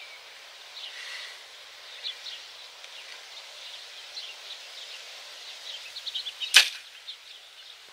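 Hoyt RX1 compound bow being shot: after a quiet hold at full draw, the string and limbs let off a single sharp snap on release about six and a half seconds in. It is a clean shot that sounded really good. Faint chirping sits over a steady outdoor hiss.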